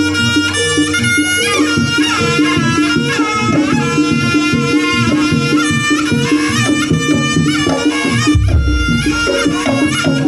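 Live jaranan gamelan music: a reedy wind melody with pitch bends, typical of the slompret shawm, over a repeating metallophone pattern and drum strokes. A deep gong stroke sounds about eight seconds in.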